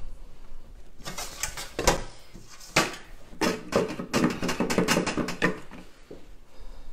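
A spatula scraping and knocking around a small metal saucepan of melted chocolate, a quick irregular run of scrapes and taps.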